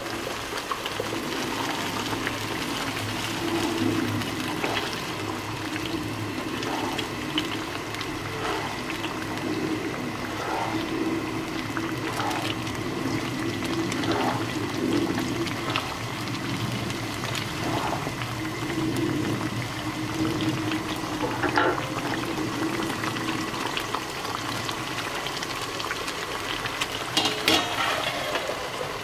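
Blended dried-chilli paste bubbling and sizzling in oil in a frying pan over low heat, with a spatula stirring and scraping against the pan now and then.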